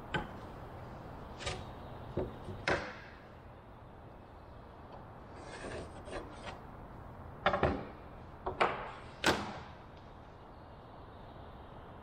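Layout tools handled on a plywood board: a metal square and straightedge set down and shifted, giving scattered knocks and clicks and a short scrape about halfway through.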